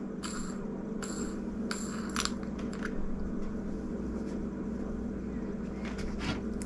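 A few light clicks and taps of small reel parts as the star drag is unscrewed from a Lew's Mach II baitcasting reel and set down on a tray, over a steady low hum.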